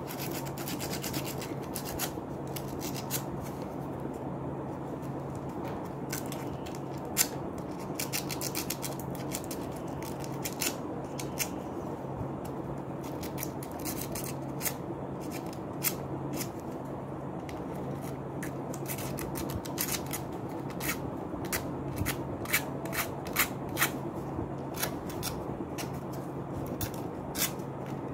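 Abrasive paper scraping the metal contacts of a relay in short, irregular strokes, with small clicks from the contact springs. The strokes come faster in the second half. It is the sound of a damaged relay's contacts being cleaned.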